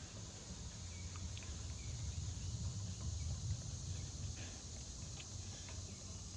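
Outdoor ambience: a few faint, short bird chirps over a steady high hiss and a low rumble.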